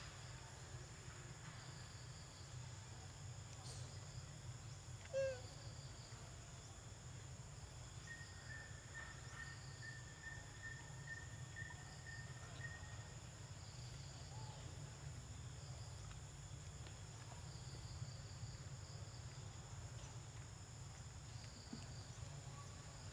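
Faint outdoor ambience: a steady insect drone with a low rumble underneath. A short chirp sounds about five seconds in, and a thin, steady whistle holds for about five seconds in the middle.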